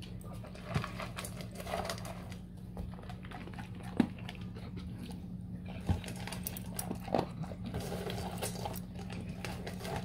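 Dog eating dry kibble from a stainless steel bowl: a quick, steady run of crunching, with a few sharper clinks against the metal bowl.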